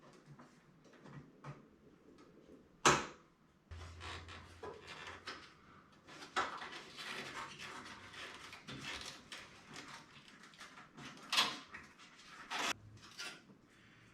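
Hands handling PC power cables and parts: rustling and scraping with scattered clicks, the sharpest and loudest about three seconds in, as connectors are pushed into place. A faint low hum runs underneath from about four seconds in.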